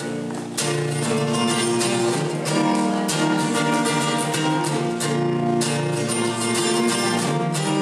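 Acoustic guitar playing the song's instrumental intro solo: repeated strummed chords ringing on, starting about half a second in.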